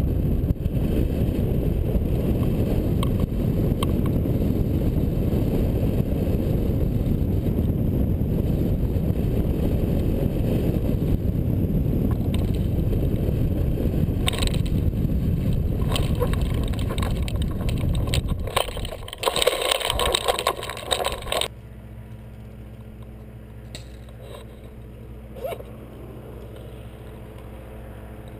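Steady rush of wind buffeting the camera microphone on a hang glider gliding in to land. About nineteen seconds in, a couple of seconds of scraping and rattling as the glider touches down on the grass, then the wind noise cuts off and only a quiet low hum is left.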